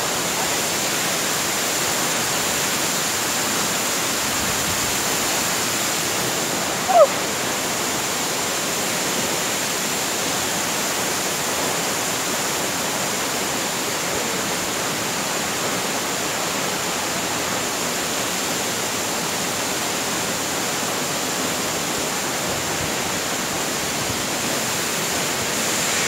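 Steady rush of a tall waterfall's falling water. About seven seconds in there is one short, loud, falling chirp.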